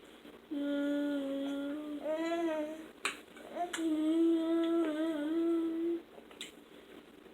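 Young boys humming long held notes while eating: two hums, each more than a second long, the first wavering up and down near its end. A sharp click about three seconds in.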